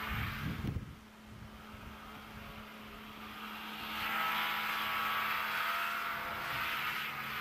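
Car engine running, growing louder about three and a half seconds in, with low wind gusts on the microphone in the first second.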